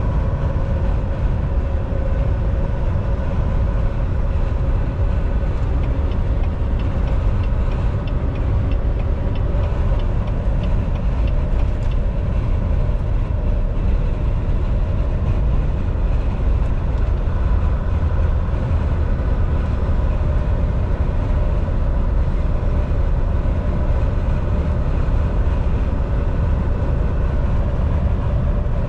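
Volvo semi-truck at highway cruising speed, heard inside the cab: a steady low drone of engine and road noise, with a faint constant whine above it.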